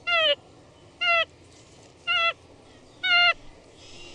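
White-faced capuchin monkey calling: four short, pitched calls about a second apart, each dropping in pitch at its end.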